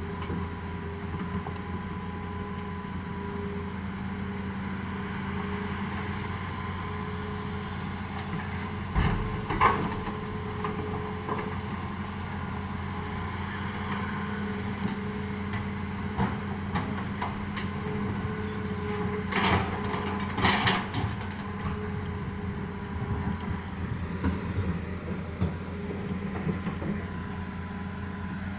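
Excavator's diesel engine running steadily, with short clusters of knocks and clatter, about nine seconds in and again around twenty seconds in, as stones are loaded into a truck.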